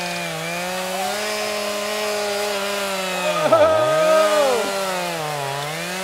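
Chainsaw running at high speed. Its pitch sags and recovers as it bites into the tree trunk, most deeply about three and a half seconds in and again near the end.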